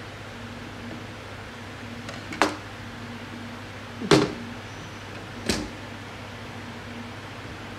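Three sharp knocks about a second and a half apart, the middle one loudest: a ZF 8HP transmission's aluminium valve body and a steel pick knocking against each other and the bench as they are handled.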